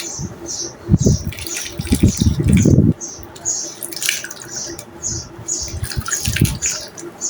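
Wet and dry sand-clay crumbling: irregular soft crunches and wet squishes, heaviest in the first three seconds and again near the end.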